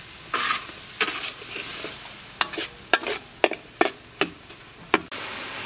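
Metal spatula scraping and clinking against a wok while stir-frying minced wonton filling, about a dozen sharp clinks over a steady sizzle. Water added to the hot wok hisses, and the sizzle grows louder about five seconds in.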